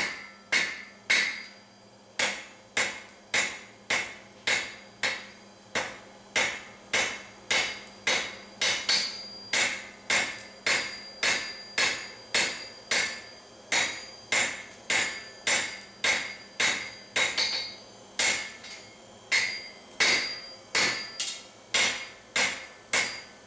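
Blacksmith's hand hammer striking a red-hot steel bar on an anvil, forging the blade of a pruning knife. The blows come in a steady rhythm of a little under two a second, each with a short metallic ring.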